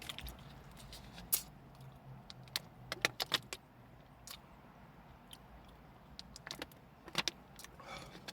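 Scattered sharp clicks and crinkles of a plastic water bottle being handled and drunk from, over a steady low hum.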